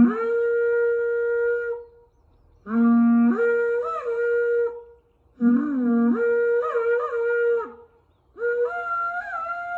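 Horagai, a Japanese conch-shell trumpet, blown in four long blasts with short breaths between them. Each blast leaps from a low note up an octave and holds there, with wavering flourishes on top.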